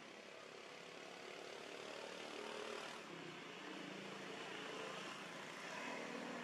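Faint hum of a distant engine, swelling a little and easing twice, over a low hiss.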